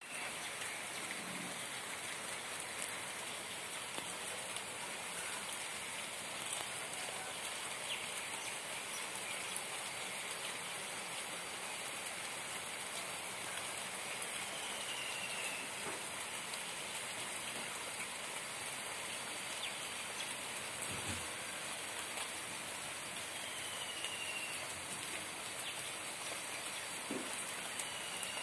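Steady rain falling on garden foliage and bare soil, an even hiss of drops on leaves. Three short falling whistles sound over it.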